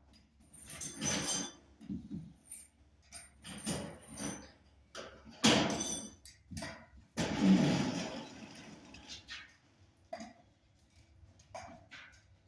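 Scattered knocks, clunks and scrapes of heavy things being handled, with two loud bangs about five and a half and seven seconds in, the second trailing into a rumble.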